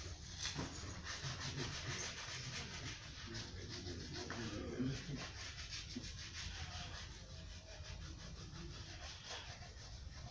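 Shoe polish being rubbed into a black school shoe by hand, a run of quick scratchy rubbing strokes.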